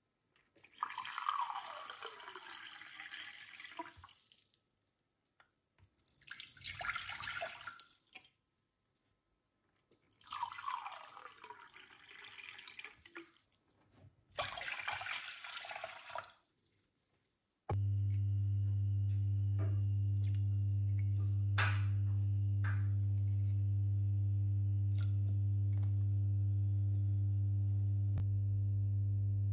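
Water poured from a drinking glass into a saucepan in four separate pours, each splashing with a tone that falls in pitch. A little past halfway, a steady low electrical hum starts suddenly and runs on, louder than the pours, with a few faint clicks over it.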